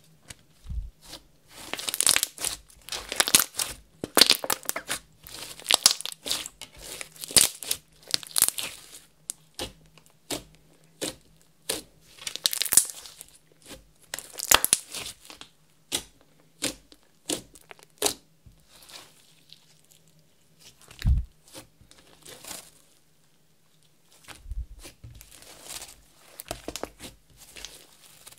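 Hands squishing, stretching and kneading clear slime mixed with makeup and glitter, giving sticky crackling and popping in irregular bursts. The bursts are busiest in the first half, and there is one dull thump about two-thirds of the way through.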